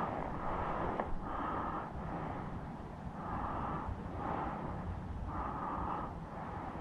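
A person breathing hard and fast in short, regular puffs, about one a second, over a low wind rumble on the microphone.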